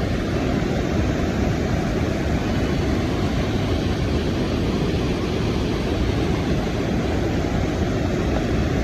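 Steady, loud rushing noise, strongest in the low range, with no clear pitch or separate strokes.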